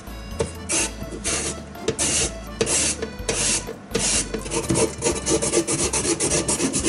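Daikon radish scraped back and forth over a julienne slicer's metal blades, shredding it into sashimi tsuma: a rasping scrape with each stroke, about two strokes a second, coming faster in the second half.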